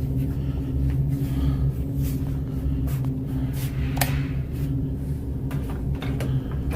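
Steady low mechanical hum with scattered faint clicks and knocks, one sharper click about four seconds in.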